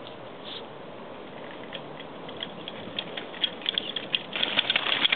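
Mountain bike clattering and rattling over rock steps as it rides closer, scattered ticks at first building into a loud, dense clatter about four seconds in.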